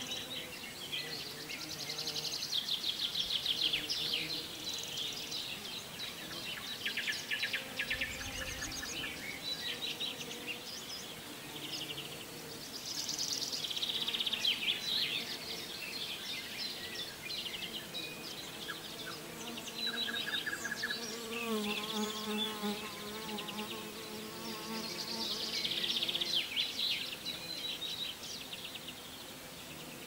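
Bees buzzing, a steady hum, with one passing close and wavering in pitch about twenty-one seconds in. Songbirds sing short rapid trills every few seconds.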